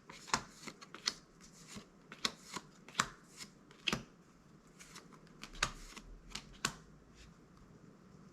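Magic: The Gathering trading cards being flipped through by hand, a string of irregular sharp card snaps and slides that stop about seven seconds in.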